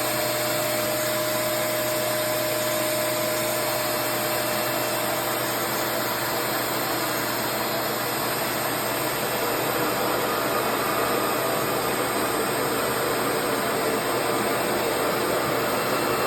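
Revair reverse-air hair dryer running steadily: a constant vacuum-like rush of air from its motor as it pulls wet hair into the hose to dry it. A faint steady whine sits on top for the first few seconds.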